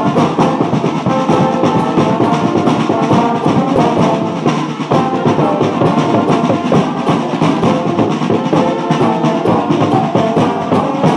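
Music with brass and drums playing a steady marching beat.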